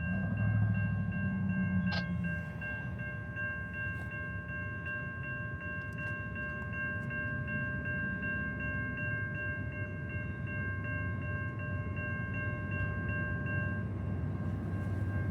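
A railroad bell ringing in quick, even strokes over the low rumble of a freight train, the ringing stopping near the end.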